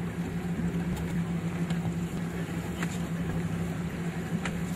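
Boat engine running with a steady low hum under wind and sea noise, with a couple of faint clicks about three and four and a half seconds in.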